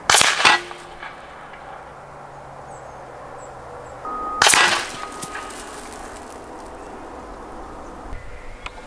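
Two shots from a Gunpower Texan .50-calibre air rifle, about four and a half seconds apart, heard from beside the target. Each is a sharp crack as the heavy slug hits a concrete block, chipping it and then breaking it apart.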